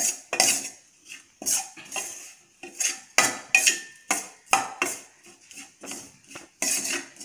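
Metal spoon scraping and clinking against a stainless steel pan while stirring chilli powder into fried spices: irregular strokes, roughly two a second.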